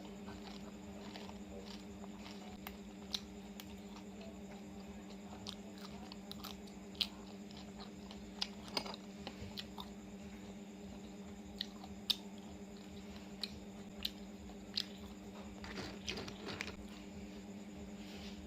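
A person chewing and biting into fresh oysters: scattered sharp clicks and smacks at irregular intervals, with a short cluster near the end, over a steady low hum.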